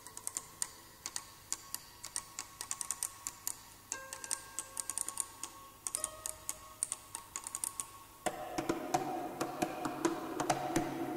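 Harp solo: a rapid patter of light, dry clicks over a few held ringing notes, which change about four and six seconds in. A little past eight seconds in, louder and lower plucked notes take over.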